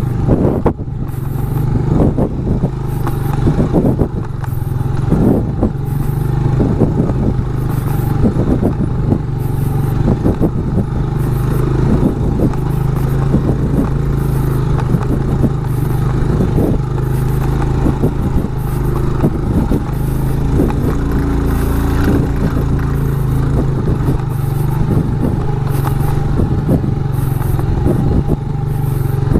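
Motorcycle engine running steadily at low revs on a rough, rocky trail, with frequent knocks and rattles from the bike jolting over the stones.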